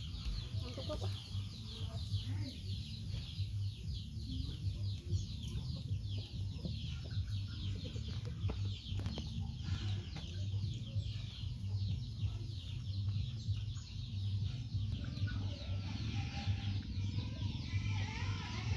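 Chickens cheeping and clucking without pause in the background, many short falling chirps overlapping, over a steady low hum.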